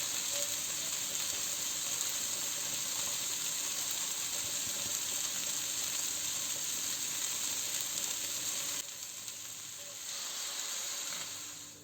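Food sizzling in a frying pan: a steady hiss that dips briefly near the end and then fades out.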